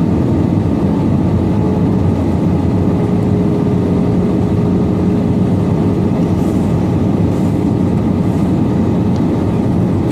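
Steady rumble of engine and airflow noise heard inside the cabin of an Airbus A320 in flight.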